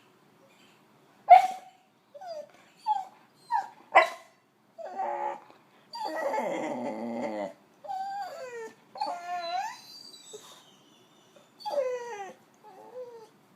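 Boxer dog "talking": a string of whines and short sharp yelps, the loudest two near the start. About six seconds in comes a longer groaning moan that falls in pitch, then several rising-and-falling howly whines. It is attention-seeking morning vocalizing, the dog acting as a wake-up call.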